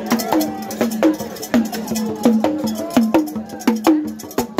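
A cylindrical drum carried under the arm and beaten with a curved stick, keeping a steady beat of about two to three strokes a second; each stroke's note bends slightly down in pitch.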